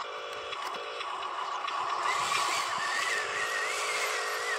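Electric drive motor and gears of a Huina RC dump truck running as it drives off. From about halfway in, a whine that wavers in pitch rises over the steady hum.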